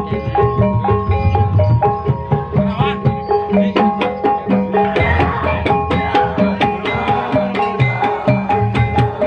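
Live Javanese gamelan playing for ebeg trance dancing: kendang hand drums beat a busy, driving rhythm under repeating notes from bronze gong-chimes.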